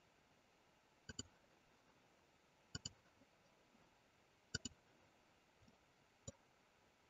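Faint computer mouse button clicks, mostly in quick press-and-release pairs: three pairs spaced a couple of seconds apart, then a single click near the end.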